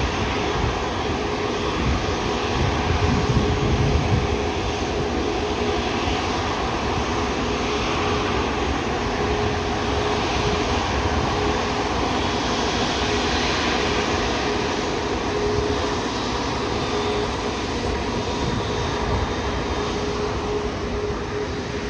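Four jet engines of an Airbus A380 running at taxi power: a steady jet noise with a constant whine through it, a little louder and heavier about three seconds in.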